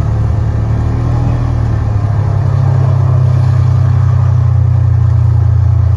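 Vehicle engine running steadily while moving, a low drone that grows a little louder about two seconds in.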